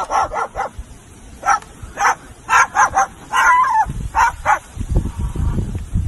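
White cockatoo imitating a dog: a string of short, loud barks and yips. A low rumble runs under the last couple of seconds.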